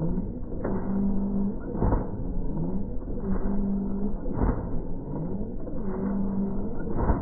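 RC ornithopter's motor and flapping-wing drive running: a mechanical hum that breaks and rises again in a regular cycle about every second and a quarter, with a short knock at each break.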